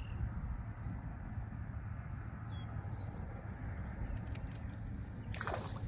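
Outdoor ambience by a pond: a steady low rumble with about six short, high bird chirps between two and three seconds in. Near the end a brief noisy rush breaks in.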